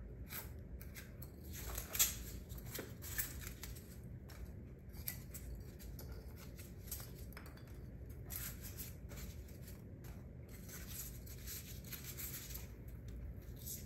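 Foam packing peanuts being picked out by hand from a wooden wool picker's tray: soft, intermittent rustling and scratchy handling noise, with a few small clicks.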